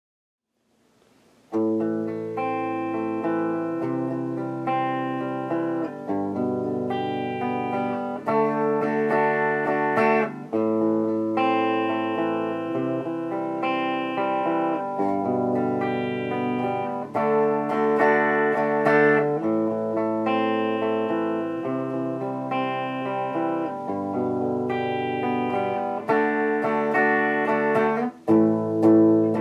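Guitar music: picked chords ring out and change every second or two, starting about a second and a half in.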